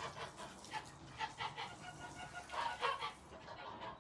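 Poultry calling: a run of short, irregular clucks and calls, a little busier about one and a half and about three seconds in.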